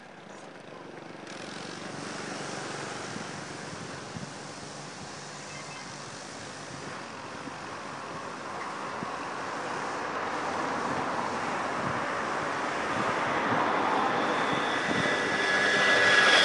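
Drone of an aircraft passing overhead, growing steadily louder over the whole stretch, with a few steady whining tones coming in near the end.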